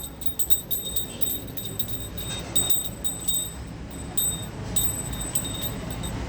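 Small metal pieces jingling in irregular light clinks, each with a short high ring.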